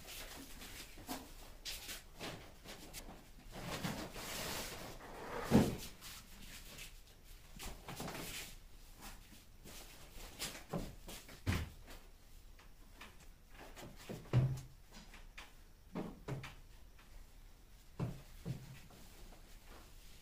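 Scattered light knocks and thumps in a small room, two of them louder, about six and fourteen seconds in, with a short stretch of soft rustling around four seconds in.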